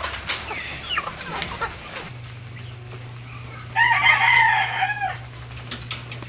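A rooster crows once, a long call about four seconds in, with faint clucking before it. A low steady hum comes in abruptly about two seconds in and runs underneath.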